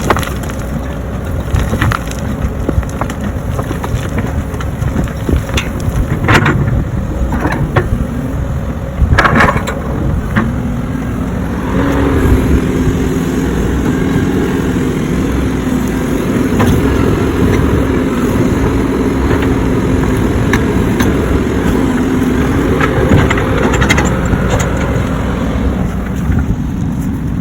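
Diesel engine of an earthmover digging and filling in holes, running under load with clanks and knocks from the bucket and soil in the first part. About ten seconds in, the engine settles into a steady higher-pitched drone that holds until near the end.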